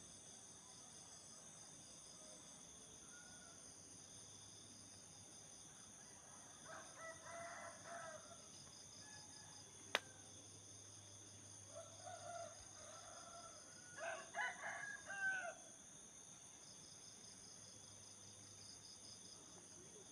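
Faint roosters crowing three times, each crow lasting a second or two, over a steady high trilling of night insects. A single sharp click comes about halfway through.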